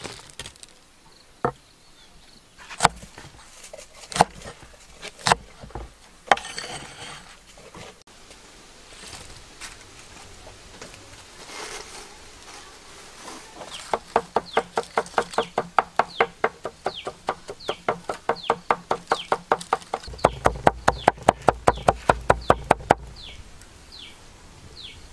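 Cleaver chopping on a wooden board: a few separate knocks, then a long, even run of quick strokes mincing garlic, about four or five a second, quickening near the end.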